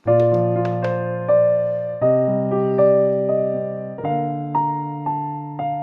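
Background music: a gentle piano melody, single notes played over sustained chords that change about every two seconds.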